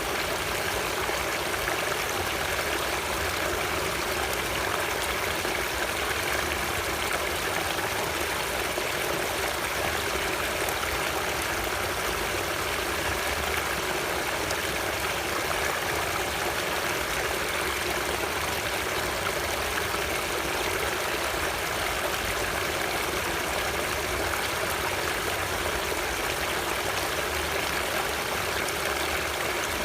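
Flowing stream water, a steady even rush with no change in level.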